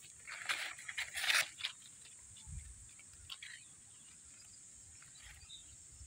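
Crunching and rustling of dry leaf litter and vines, loudest in the first second and a half, then a few fainter rustles, over a steady high insect buzz.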